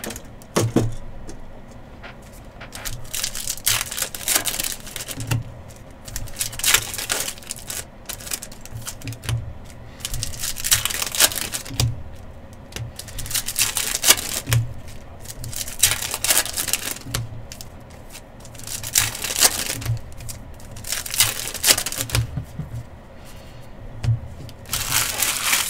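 Foil trading-card packs being torn open and their cards handled: a crinkling, rustling burst every two to three seconds, with light clicks and taps of cards on the table between them.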